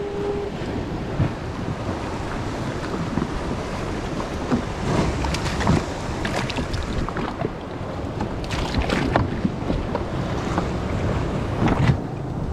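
Wind blowing across the microphone over choppy surf, with water sloshing and slapping against a kayak hull and a few sharp splashes.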